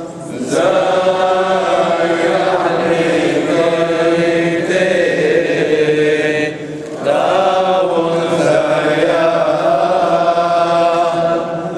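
Chaldean liturgical chant sung in unison by a group of men's voices, with long held notes. The singing breaks off briefly at the start and again just past halfway, then carries on.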